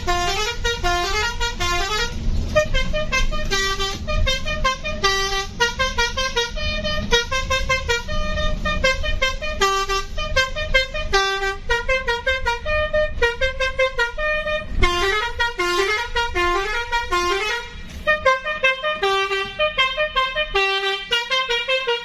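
Bus telolet (basuri) horn, a multi-tone electric air horn playing a continuous tune of short notes that change pitch several times a second, over the low running of the bus engine.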